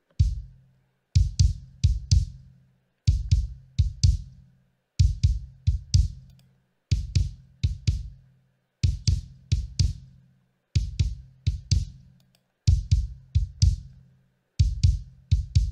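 Soloed kick drum playing a repeating pattern: clusters of a few deep thuds with a bright beater click, a new cluster about every two seconds. It runs through a Pultec-style tube EQ emulation that tightens the low end and boosts around 8 kHz for beater smack. The EQ is bypassed about halfway through and switched back on near the end.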